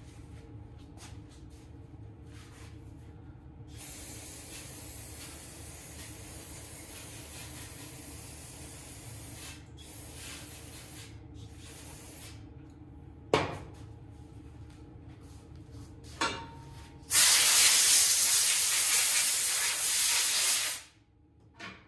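Aerosol carburetor cleaner hissing as it is sprayed over the outside of a chainsaw carburetor to clean off dirt. A steady spray of about eight seconds comes first. After two sharp clicks, a much louder spray of about four seconds follows near the end.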